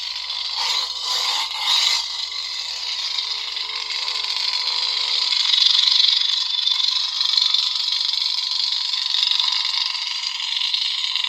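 Lightsaber sound font playing through the Proffie-board saber hilt's small bass speaker: a steady electric buzzing hum, with louder swells in the first two seconds as the blade is swung.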